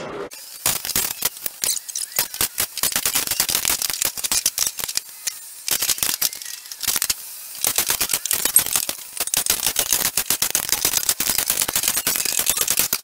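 Cordless impact driver hammering in rapid bursts as it backs out the screws holding a bus's handicap rails, with a couple of short pauses between screws.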